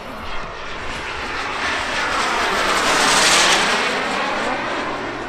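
A pair of radio-controlled model aircraft making a pass, their engine noise swelling to a peak about three seconds in and then fading as they go by.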